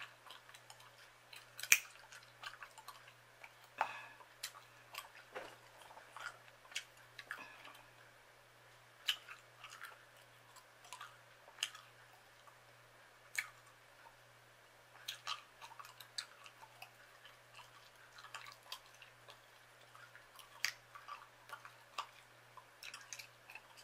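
Chewing gum being chewed: irregular wet smacking clicks and snaps, the sharpest about two seconds in, over a faint steady low hum.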